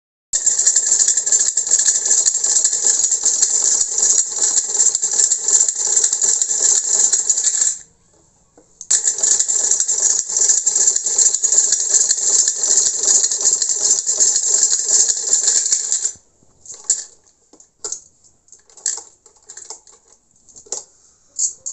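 Hand-cranked Brother sewing machine stitching, a rapid, even mechanical clatter. It stops for about a second some eight seconds in, runs again, and stops about sixteen seconds in, leaving a few scattered clicks.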